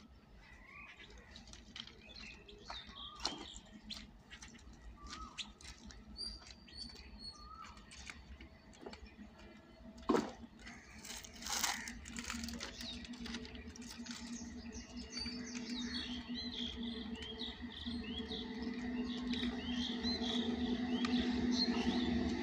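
Birds chirping and calling, with a couple of sharp knocks about ten seconds in. In the second half a steady hum from an approaching WAP-7 electric locomotive and its train rises and grows louder toward the end.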